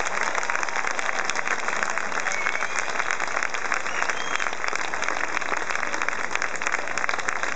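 Large crowd applauding steadily, with a few short whistles over the clapping.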